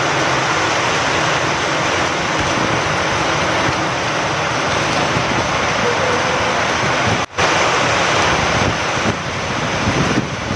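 Steady rain falling with wind, a dense even hiss. About seven seconds in it cuts out for a split second and comes straight back, like a splice in the recording.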